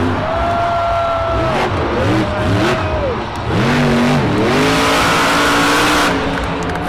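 Monster truck's supercharged V8 engine revving hard, its pitch climbing and falling several times, then held high for a couple of seconds before dropping near the end.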